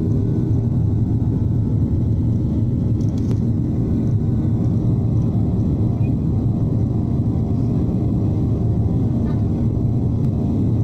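Cabin noise of a jet airliner climbing after takeoff, heard from a window seat beside the engine: the turbofan engines' steady low rumble with a constant hum.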